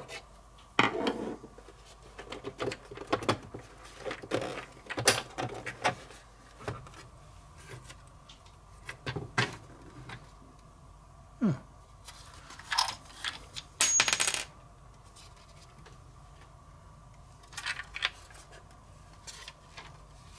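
Irregular sharp clicks and small clatters of a screwdriver and small screws as the back of a Sanyo M2420 radio-cassette recorder is unscrewed, then its black plastic back cover clicking and scraping as it is worked free and lifted off, with one louder scrape about two-thirds through.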